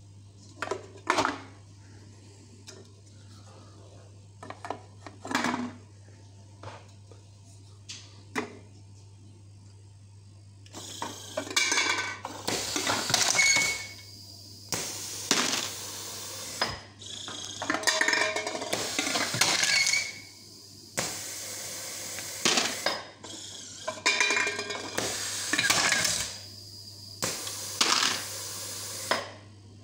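Pneumatic can crusher working through aluminium cans. At first there are scattered clicks and clinks of the can feed. From about eleven seconds in, it runs repeated crush cycles roughly every three seconds, each a loud burst of air noise and metal crunching, about six in all, over a steady low hum.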